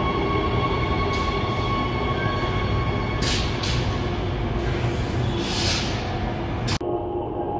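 Transperth B-series electric train at an underground platform: a steady rumble and motor whine, with a few short hisses and one longer hiss lasting about a second past the middle. The sound cuts off abruptly near the end and gives way to duller platform ambience.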